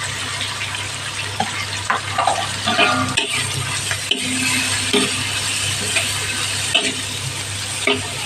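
Onion, garlic, dried chilies and dried anchovies sizzling in hot oil in a pan, with mustard seeds just added, while a spatula stirs. A few sharp taps of the utensil against the pan.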